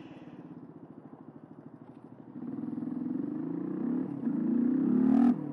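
Suzuki DR125's single-cylinder four-stroke engine running at low revs, then pulling away about two seconds in with the revs rising. A brief dip about four seconds in, as at a gear change, is followed by the revs climbing again until they drop near the end.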